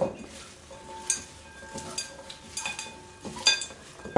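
Salad being tossed in a bowl with serving utensils: several irregular clinks of the utensils against the bowl, each ringing briefly, over a soft rustle of leaves.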